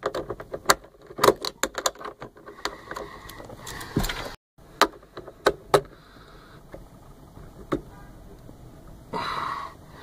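Irregular sharp clicks, taps and light rattles of interior trim pieces and hand tools being handled while dismantling a truck's cab trim, with a brief burst of hissing noise near the end.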